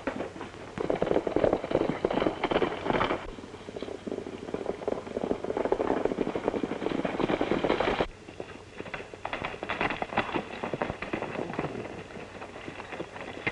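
Horses galloping: a rapid, dense clatter of hoofbeats, louder in the first eight seconds and dropping suddenly about eight seconds in.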